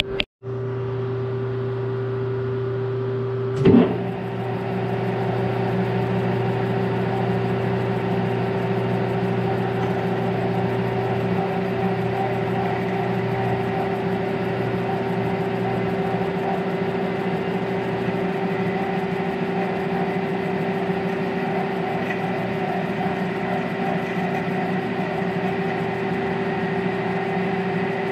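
Metal lathe running steadily with a steady motor hum, spinning the Model T driveshaft in its chuck; a single sharp clunk comes a few seconds in. After that the sound grows slightly louder and rougher as a drill in the tailstock chuck is fed into the end of the shaft.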